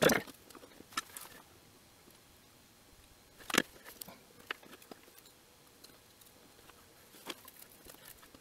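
Scattered small clicks and taps of a protoboard being set into a black PCB-holder clamp and the clamp being adjusted by hand, the sharpest knock about three and a half seconds in.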